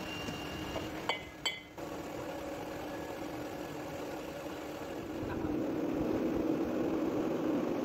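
Two sharp metallic clinks from the chuck key on the heavy metal lathe's chuck about a second in. Then the steady hum of the lathe running, which grows louder about five seconds in.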